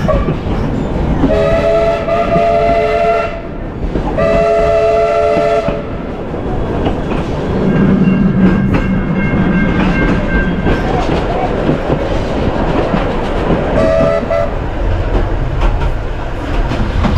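Steam locomotive's chime whistle blowing two long blasts, then a short one later, over the steady rumble and clickety-clack of the carriages rolling on the track.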